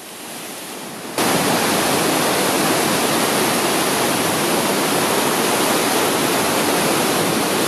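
A steep waterfall pouring and cascading over rock: a steady, loud rush of water that jumps abruptly louder about a second in.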